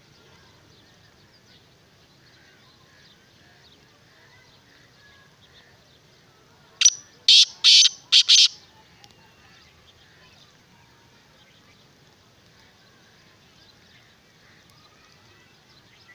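Caged black francolin giving its loud, harsh territorial call, a quick series of about five grating notes lasting under two seconds about seven seconds in. Faint songs of other birds carry on around it.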